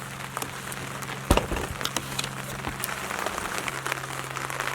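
Scattered raindrops ticking and dripping over a soft hiss, under a steady low drone from a boat engine out on the water. One sharp knock comes about a second in.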